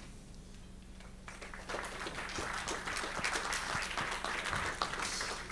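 Audience applauding: many hands clapping, starting just over a second in and thinning out near the end.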